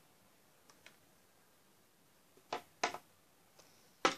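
Small plastic dolls being handled and set on a toy sofa: a few short taps and knocks, two sharp ones about a third of a second apart in the middle and another near the end, over a quiet room.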